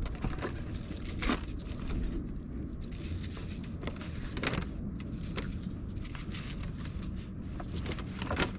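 Thin clear plastic clamshell container crackling and clicking as whole raw perch are turned and moved inside it by a gloved hand, over a steady low rumble.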